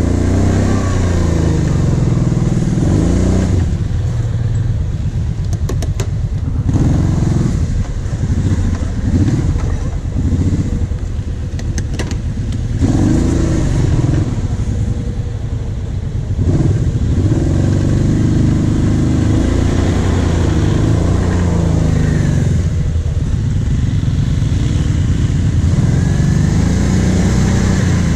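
On-board quad (ATV) engine running, revving up and falling back several times to a lower, pulsing idle, with a few short sharp clicks.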